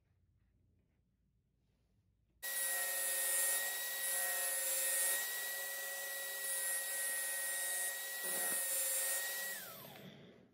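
Electric drill spinning an abrasive disc while a knife blade made from a file is ground against it to sharpen the edge: a steady motor whine under a gritty grinding hiss that swells with each pass of the blade, starting suddenly about two and a half seconds in. Near the end the whine falls in pitch as the disc spins down and the sound fades.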